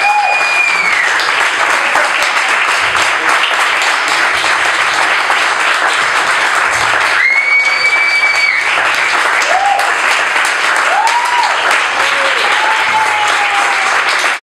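Audience applauding, with a long whistle about halfway through and a few short whoops over the clapping; the sound cuts off abruptly near the end.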